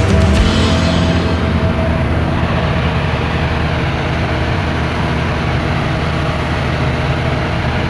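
Steady, loud rumbling noise of a jet airliner and the airport apron around it, without a break.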